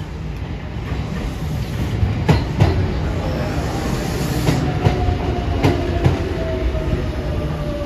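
Passenger train rolling into a station platform, its wheels clacking sharply over rail joints a few times. A thin whine falls slowly in pitch in the second half as the train slows.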